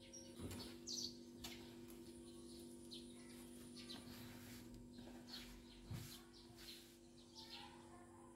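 Faint small-bird chirps, many short quick downward calls, over a steady low hum, with a soft knock about half a second in and another near six seconds.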